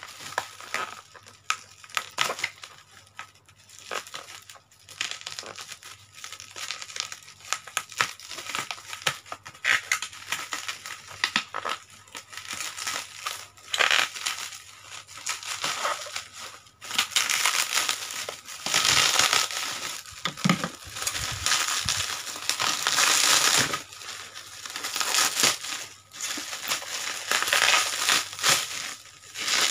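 Plastic packaging being handled and unwrapped by hand, crinkling and crackling, with a bubble-wrap bag near the end. At first the crackles are scattered; through the second half the crinkling turns dense and louder.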